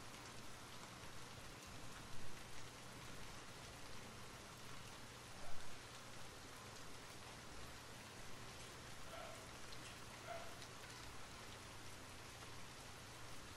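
Steady rain falling, an even patter of raindrops, with two brief louder sounds about two and five and a half seconds in.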